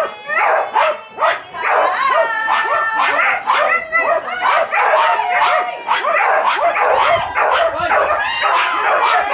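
Flyball dogs barking hard and fast, the barks coming two or three a second at first and then overlapping into a din, with high yips and whining among them.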